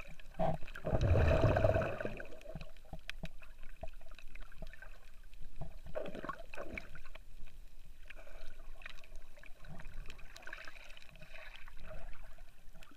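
Muffled underwater water noise recorded with the camera submerged: irregular gurgling and sloshing with small crackles, and a louder rushing swell about a second in.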